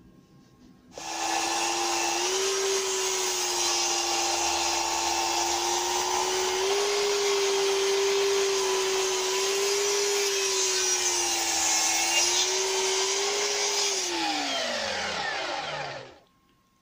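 Festool KS 120 EB sliding mitre saw starting up about a second in and cutting through a thick pine board with a steady motor whine for about thirteen seconds, then switched off, its pitch falling as the blade winds down.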